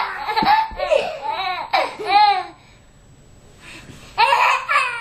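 Small children laughing and squealing in high-pitched bursts, with a pause, then another burst of laughter near the end.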